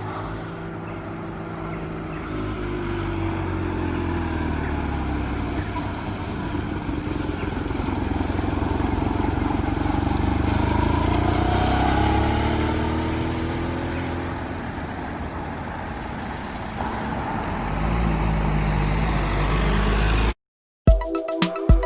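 BMW R1100RT boxer-twin engine running on the road, its note rising and falling as the bike speeds up and eases off. The engine sound cuts off about 20 seconds in, and music with a steady beat starts shortly after.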